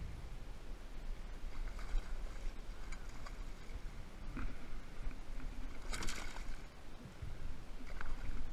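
Hooked largemouth bass thrashing at the surface beside a kayak as it is landed by hand, with one short loud splash about six seconds in. Small knocks from the kayak and gear sit over a steady low rumble.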